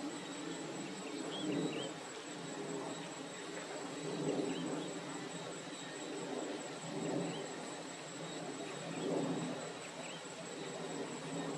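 Outdoor ambience of a steady, high-pitched insect trill, with faint short chirps and low swells of noise every two to three seconds.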